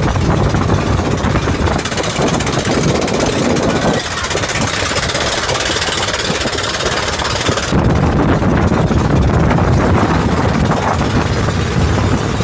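Outrigger boat's engine running steadily under way, loud and unbroken, mixed with rushing wind and water.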